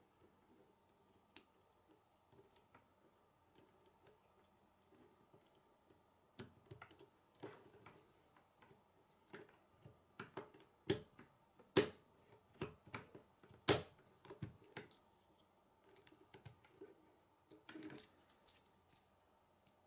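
Plastic K'nex rods and connectors clicking and snapping into place by hand: scattered sharp clicks, coming thickest through the middle, with the two loudest snaps about two seconds apart.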